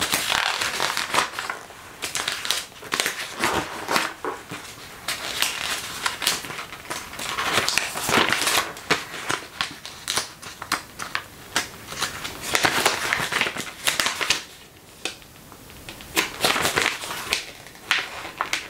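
Glossy pages of a thick catalogue being turned one after another: repeated paper swishes and crinkles with small sharp crackles.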